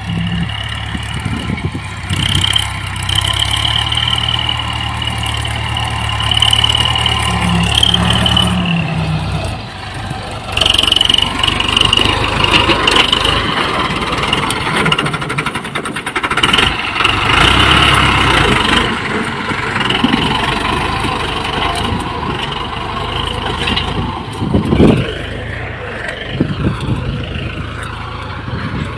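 New Holland 6610 tractor's diesel engine running steadily under load while pulling a plough through dry soil, its sound shifting about ten seconds in.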